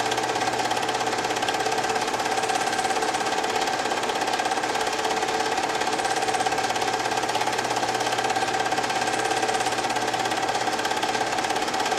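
Film projector running steadily: a fast, even mechanical clatter with a constant whine over it.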